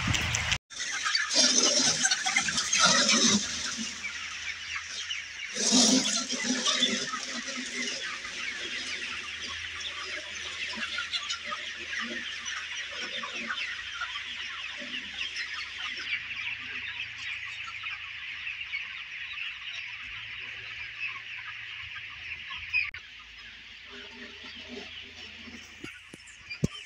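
A large flock of chickens clucking and calling together in a dense, continuous chatter. It is loudest in the first few seconds and again about six seconds in.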